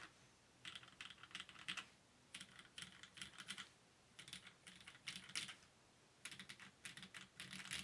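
Typing on a custom Mode Sonnet mechanical keyboard: four quick runs of keystrokes, each about a second long, with short pauses between them.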